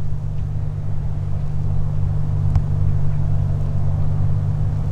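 Cessna T182T Turbo Skylane's turbocharged six-cylinder Lycoming engine and propeller droning steadily as the aircraft comes in on landing approach, growing slowly louder as it nears.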